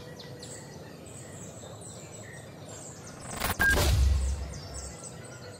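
Logo-intro sound effects: a steady nature ambience with faint bird chirps, then a sudden whoosh and deep boom about three seconds in that rumbles and fades away.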